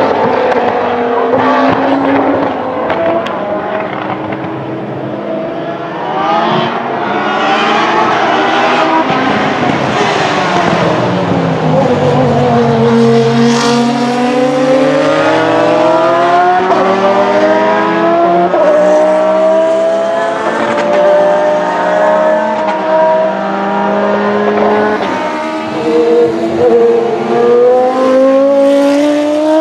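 Open-wheel race car engines at high revs as several cars pass, the pitch climbing in steps through the gears and falling away, with more than one engine heard at once at times. Near the end, a Jordan-based three-seater's Judd V10 passes.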